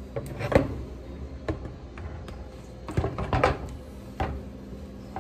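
Several short knocks and clatters of household objects being handled and set down, the loudest a little under a second in and around three seconds in, over a faint steady hum.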